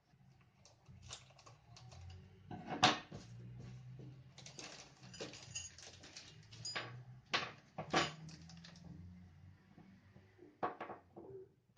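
Handling noises from unpacking: an irregular run of clicks, taps and rustles, with louder knocks about three seconds in and again about eight seconds in.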